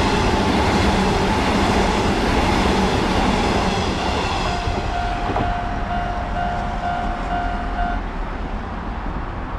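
Sanyo Electric Railway train passing over a level crossing, its rumble and wheel noise fading about four seconds in. The crossing's warning bell keeps up its repeating clang and stops about eight seconds in as the crossing clears.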